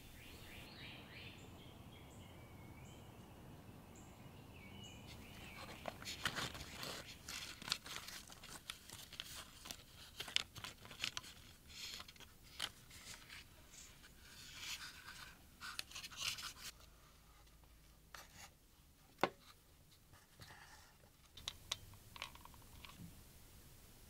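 Hands handling the pieces of a small wooden model boat: light wooden clicks, taps and scraping against a glass desktop, busiest from about six to seventeen seconds in, with one sharper click a little later. A run of faint high chirps in the first few seconds.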